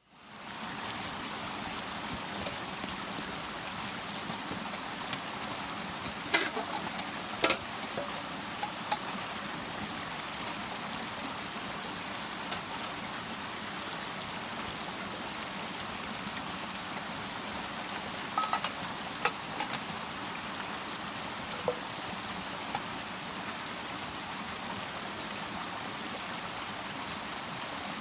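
Steady rushing water noise with no pitch to it, fading in at the start and holding even throughout. A few sharp knocks and clicks cut through it, the loudest about six and seven seconds in and a small cluster around eighteen to twenty-two seconds.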